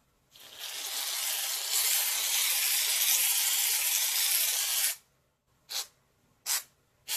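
Aerosol can of shaving cream spraying foam in one long steady hiss for about four and a half seconds, cutting off sharply, then two short puffs near the end.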